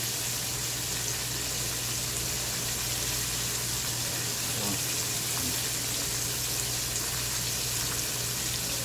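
Oil deep-frying chicken wings and freshly added french fries in a wok, bubbling and sizzling steadily, with a low steady hum underneath.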